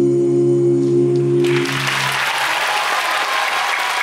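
Five mixed voices singing a cappella hold a final chord that fades out about a second and a half in, as audience applause breaks out and goes on.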